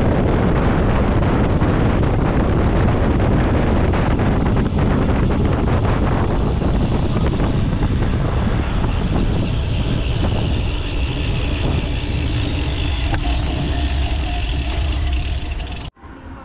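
Wind buffeting the microphone of a bike-mounted camera on a road bike at speed, with tyre and road noise as a dense steady rumble. A car passes in the opposite lane about halfway through. Near the end the sound cuts off suddenly and comes back much quieter.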